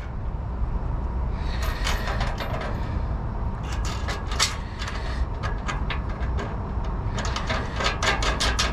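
Small clicks and rustles of light wires and bolt hardware being handled as the wires are threaded through a light's mounting stud, coming in three short clusters over a steady low rumble.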